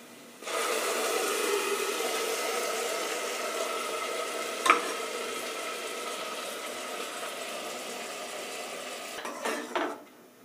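Wet ground coriander-and-mint paste hitting hot oil in a pressure cooker, sizzling loudly from about half a second in and slowly dying down. A spoon clinks once against the pot about halfway through, and stirring clatters near the end.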